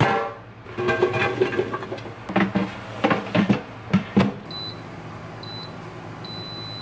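Air fryer's plastic basket knocking and clattering as it is set into the drawer and the drawer is slid shut, then the control panel beeping as buttons are pressed: two short high beeps and a longer one near the end, over a low steady hum.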